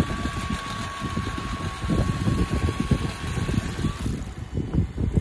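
Wind buffeting the microphone in uneven gusts, with a thin steady whine that stops about four seconds in.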